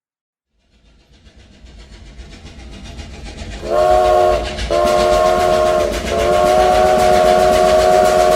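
Train sound effect: a rumble of a train approaching builds up over about three seconds, then the train's whistle sounds a chord three times, two short blasts and one long.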